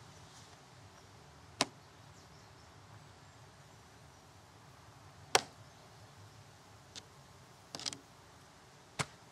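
Shovel blade striking into soil as a man digs a deep hole, about five sharp chunks at uneven intervals, the loudest about five seconds in, over a faint steady outdoor background.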